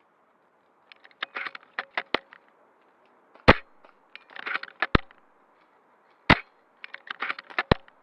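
Airsoft guns firing: three bursts of rapid sharp clicks, with several louder single cracks between them, the loudest about three and a half seconds in.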